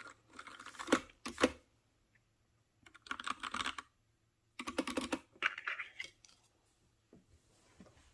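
Typing on a Freewrite writing device's mechanical keyboard: three quick bursts of key clicks separated by short pauses, then a few scattered taps near the end, as the keys are tried out after a keycap swap.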